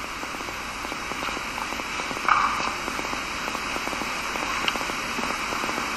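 Steady background hiss with light crackling, the noise floor of a recorded lecture, with one brief louder noise about two seconds in.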